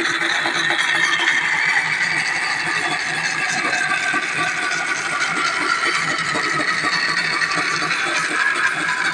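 Old woodworking machine running with a steady rattle and a whine whose pitch dips slightly and then rises again.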